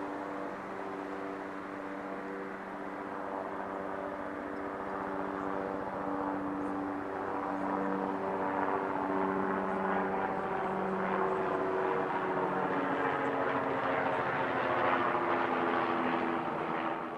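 An engine drones steadily, with a hum of several steady tones, and grows gradually louder before cutting off abruptly at the end.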